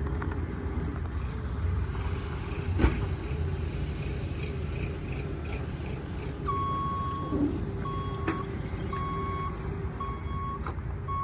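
A vehicle's reversing alarm beeping steadily about once a second, starting about six and a half seconds in, over a low steady rumble of machinery.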